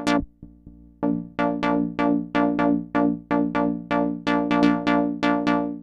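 A sequenced synth lead pattern played from a Native Instruments Maschine sampler: short repeated notes about four a second, coming back in about a second after a brief gap. Each note is brighter or duller as its velocity opens and closes the filter cutoff.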